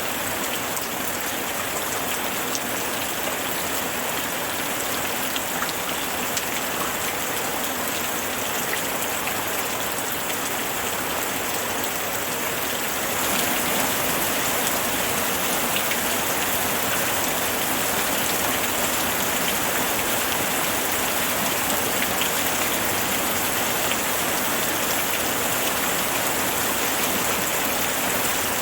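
Steady rainfall, an even hiss with scattered drop ticks, growing a little heavier about halfway through.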